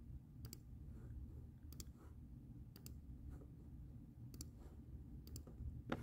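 Faint clicking: about five sharp clicks, each a quick pair of ticks, spaced a second or so apart, as the Waves Tune Live plugins in the SoundGrid mixer are switched back on channel by channel. A low steady hum sits underneath.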